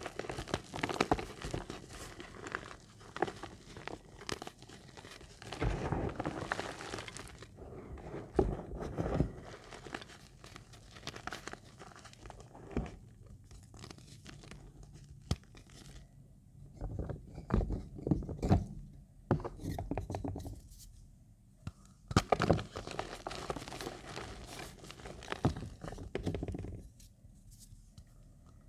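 Chunks of reformed gym chalk crushed and crumbled between bare palms: irregular dry crunching and crackling with grains sifting down, in clusters separated by a few short, quieter pauses.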